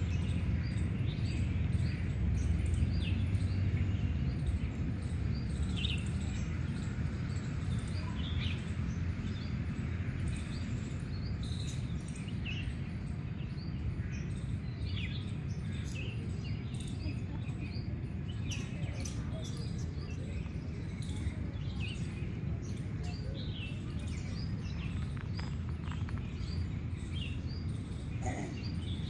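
Several birds chirping and calling with many short high notes throughout, over a steady low rumble.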